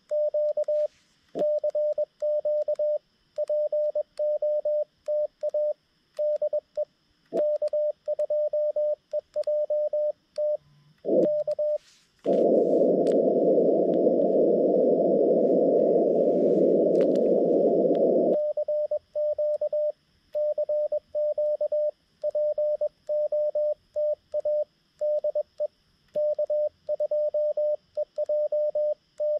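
Morse code sidetone from a Xiegu G90 transceiver: a single tone keyed on and off in dots and dashes, sent with a paddle key. In the middle, for about six seconds, the sending stops and the receiver's hiss through the narrow CW filter comes up while the operator listens for a reply, then the keying resumes.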